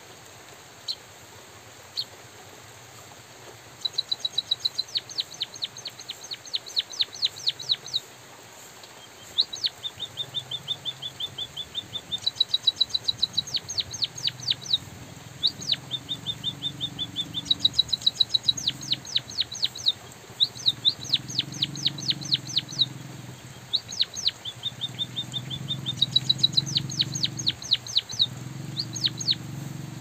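White-headed munia singing: runs of rapid, high, ticking notes lasting a few seconds each, separated by short pauses. From about ten seconds in, a low droning hum comes and goes beneath the song.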